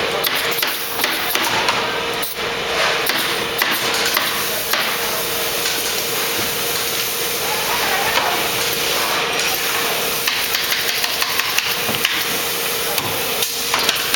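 Pneumatic staple guns firing in quick sharp clicks, growing faster and more regular near the end, over a steady hum of shop noise.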